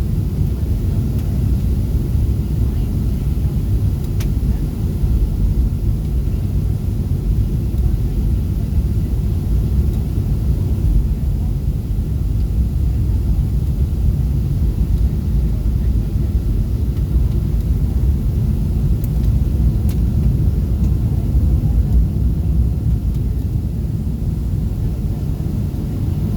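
Steady low rumble of jet engine and airflow noise inside the passenger cabin of a Southwest Airlines Boeing 737 as it descends to land.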